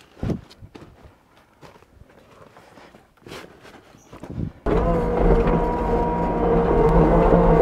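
A few faint knocks. Then, about two-thirds in, the diesel engine of a Case Minotaur DL550 compact track loader comes in abruptly, running loud and steady.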